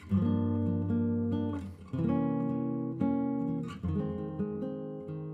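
Acoustic guitar music: strummed chords ringing out one after another, gradually getting quieter through the second half.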